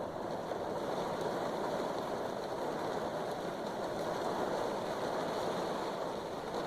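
Steady rushing road noise of a car driving on a wet road, heard from inside the cabin.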